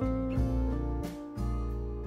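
Background music: acoustic guitar chords strummed in a slow, even rhythm, one change about every second and a half.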